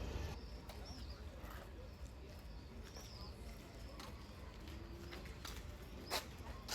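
Faint ambience with a steady low rumble and a few faint, high bird chirps; a couple of soft clicks near the end.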